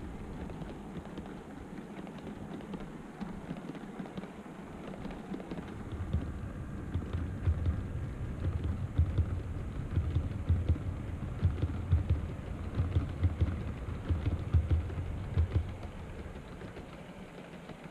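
OO gauge model train running past on the layout's track: a steady rumble with an uneven clatter of wheels over rail joints, louder from about six seconds in and dying away near the end.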